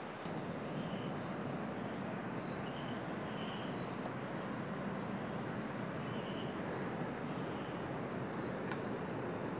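Steady high-pitched chorus of night insects, such as crickets, over an even background hiss.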